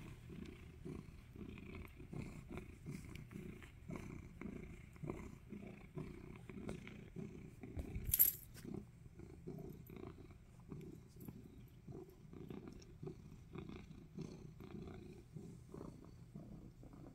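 Orange tabby cat purring close to the microphone, a continuous low purr that swells and fades in pulses. A single sharp knock or bump cuts across it about eight seconds in.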